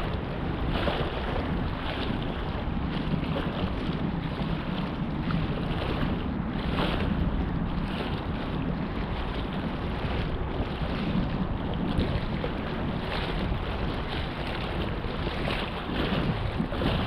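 Wind buffeting the microphone, a steady low rush with gusty swells, over choppy water lapping against a concrete sea wall.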